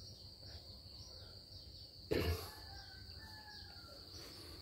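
Insects chirring steadily in a high, even tone, with a brief louder sound about two seconds in.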